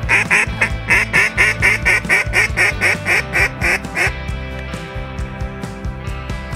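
A rapid run of about sixteen loud mallard-style quacks, roughly four a second, each dropping in pitch, stopping about four seconds in, over background music.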